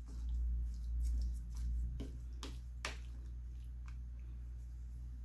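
White plastic spoon mixing spice-coated basa fish fillets in a plastic bowl: soft wet squishing with a few light taps and clicks, the last about four seconds in, over a low steady hum.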